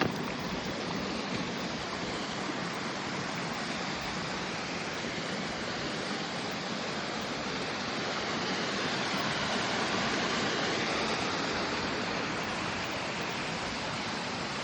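Running water of a stream, a steady rush that swells slightly about ten seconds in.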